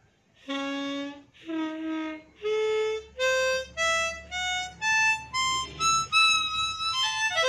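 Easttop T008K diatonic harmonica in the key of G played as a draw-note sound check, holes 1 to 10 drawn one at a time, each note a little higher than the last. The notes sound clean, with no buzzing or dead reeds: the harmonica "still sounds good".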